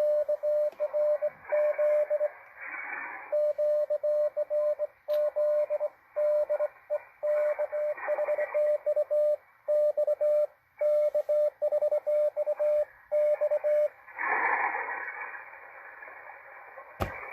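Morse code (CW) received on a Malachite DSP SDR shortwave receiver: a single mid-pitched beep keyed in short and long elements over band hiss. The keying stops about 14 seconds in, leaving a burst of static, and a sharp click comes near the end.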